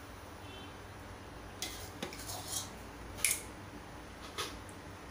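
Steel spoon scraping and clinking against the inside of a stainless steel pot as thick set curd is scooped out: a handful of short scrapes and clinks, the sharpest a little past three seconds in.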